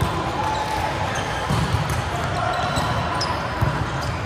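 Indoor volleyball rally: the ball is struck about four times by players' hands and arms, each hit a sharp smack, with brief squeaks from sneakers on the court. Everything echoes in a large gym hall.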